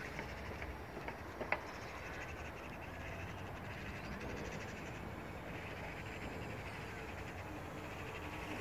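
Wind rumbling on the microphone outdoors, with the faint drone of a radio-controlled Cessna 182 model plane flying at a distance and a single sharp click about one and a half seconds in.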